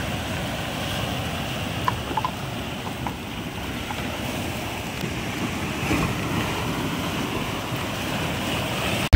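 Sea surf washing onto the shore, a steady rushing noise, with wind buffeting the microphone.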